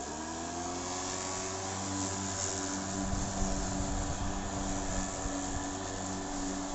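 Ryobi 36V brushless cordless lawn mower with a 46 cm deck, its electric motor and blade spinning up right at the start and then running steadily while cutting grass: a steady pitched hum over a rushing noise.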